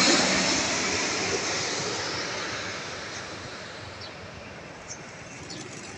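Jet noise from a wide-body twin-engine airliner on landing approach, just past overhead: a broad hiss that fades steadily away as the aircraft moves off.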